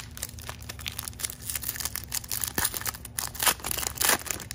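Foil trading-card pack wrapper crinkling and tearing as it is opened by hand: a run of irregular crackles, loudest near the end.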